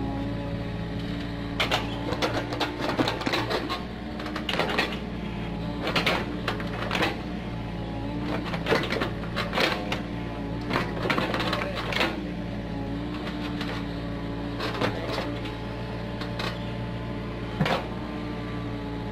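Komatsu PC45 mini excavator's diesel engine running steadily while the bucket digs, with a busy run of sharp clanks and knocks from the bucket and arm working in the soil that thins out in the last few seconds, ending with one louder knock near the end.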